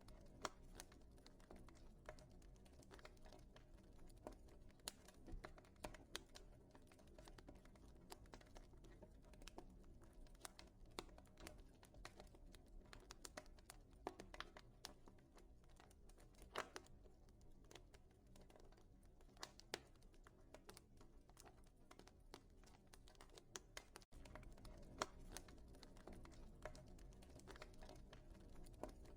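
Wood fire crackling in a fireplace: faint, irregular snaps and pops over a low rumble of burning. The sound drops out for an instant near the end.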